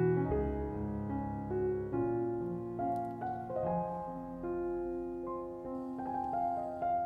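Background piano music, a slow run of single notes over held lower notes.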